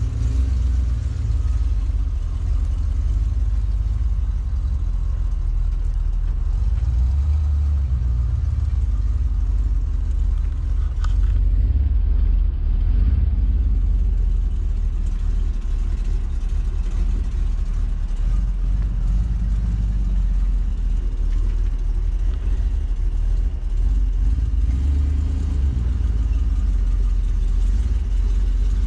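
Carbureted engine of a Class C motorhome running at low speed as it is backed and manoeuvred into place, a steady low rumble. The engine has a vacuum leak from a broken choke pull-off that makes it idle poorly. A single short tick sounds about 11 seconds in.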